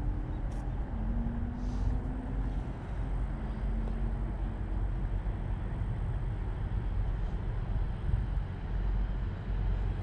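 Steady low rumble of outdoor background noise, like distant road traffic, with the faint engine note of a vehicle rising slightly in pitch in the first few seconds.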